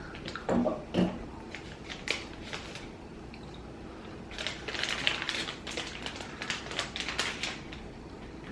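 Plastic snack packaging crinkling and crackling as it is handled and opened, densest in the second half. Two brief low sounds come about half a second and a second in, the loudest moments.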